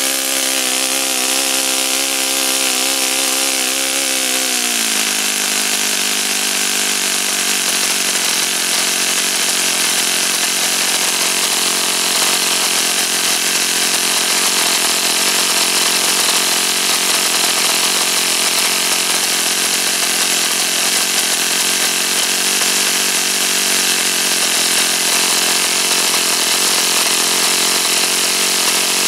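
O.S. FS-48 Surpass four-stroke model glow engine running with its propeller. Its pitch shifts about four to five seconds in, then holds steady. Leaning the needle valve fully brings no change in speed, the sign of an air leak in the intake.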